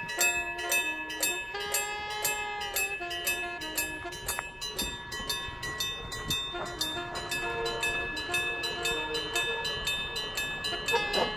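Japanese level-crossing warning bell ringing steadily at about three strikes a second, with a melody of background music under it.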